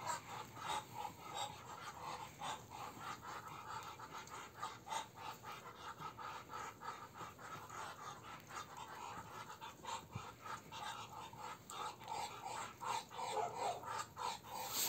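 Muscovy drakes making faint, breathy hissing puffs in quick, irregular series.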